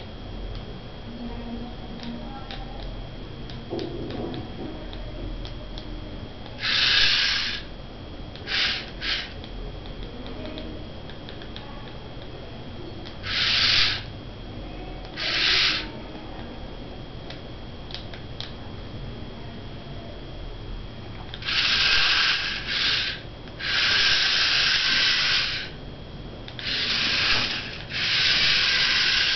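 Small DC gear motors of a four-wheel-drive remote-controlled robot car whirring in short bursts, each from a fraction of a second to about two seconds, as the car is driven in spurts; the bursts come closer together and run longer near the end.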